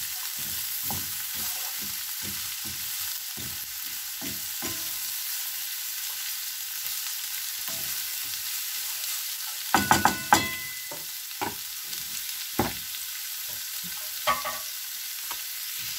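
Shredded cabbage, carrot and onion sizzling in a frying pan, stirred with a wooden spatula that scrapes and knocks against the pan. A louder burst of clatter comes about ten seconds in.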